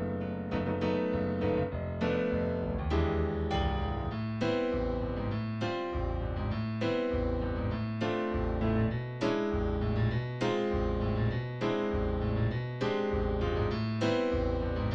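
Piano music: a steady, repeating run of struck notes and chords, each ringing and fading, with a low bass line that grows stronger about a third of the way through.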